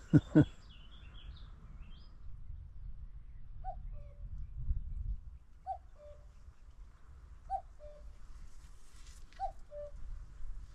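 Common cuckoo calling its two-note "cuck-oo", a higher note dropping to a lower one, four times about two seconds apart, starting a few seconds in; clear and distinct from a tree across the river.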